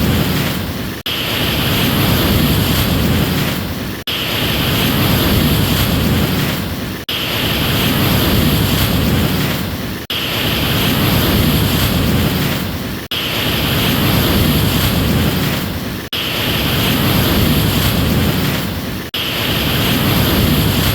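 Ocean waves and surf, a continuous rushing noise. It swells and then cuts out briefly about every three seconds, the same short stretch repeating over and over.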